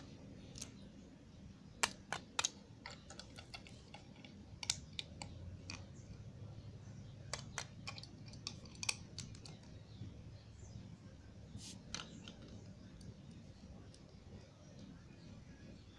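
Irregular, scattered plastic clicks and taps as LEGO minifigures are set and pressed into place on a small LEGO brick vehicle by hand.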